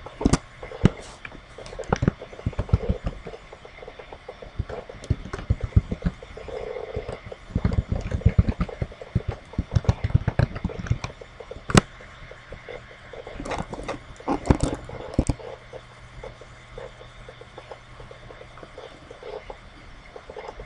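Computer keyboard being typed on: runs of quick key clicks, densest in the middle, with a few single sharper clicks, over a faint low steady hum.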